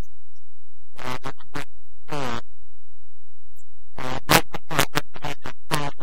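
Steady low rumble of a Yamaha YZF600R Thundercat motorcycle's engine and wind noise while riding at a steady pace. A voice comes and goes over it: briefly about a second in, again around two seconds in, and in a longer stretch from about four seconds to near the end.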